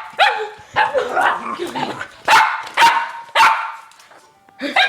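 A dog barking repeatedly: about half a dozen loud, sharp barks in quick succession, with a pause of about a second before the last one.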